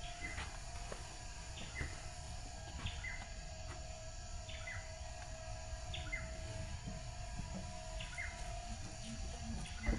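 A bird repeating a short two-note call every second or two, the second note sliding downward, over a steady faint hum and low wind rumble.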